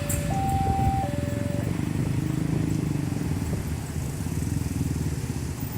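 A level crossing's new electronic warning siren, alternating between a low and a high tone, low-high-low, and cutting off about a second and a half in. Under it runs a steady low engine rumble of road traffic.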